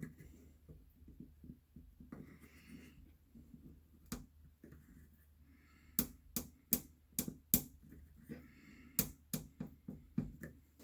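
Crossbar dent puller being tightened on a glued pulling tab on a car door: a run of sharp clicks, about two or three a second, in the second half, after some quieter handling sounds.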